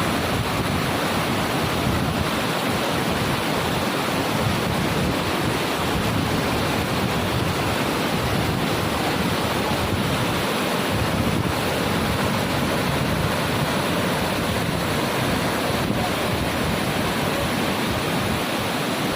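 Waterfall: the steady, loud rush of falling water, with some low rumble of wind on the microphone.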